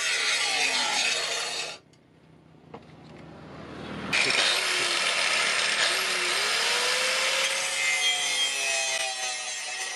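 Angle grinder with an abrasive disc grinding a steel cleaver blade and its handle: a dense, rasping grind with the disc's whine shifting in pitch under load. It cuts off sharply about two seconds in and starts again abruptly about four seconds in.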